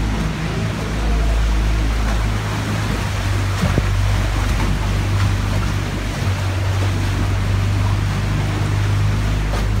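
Small motorboat's engine running steadily, a low hum, under the rush of water and wind around the boat.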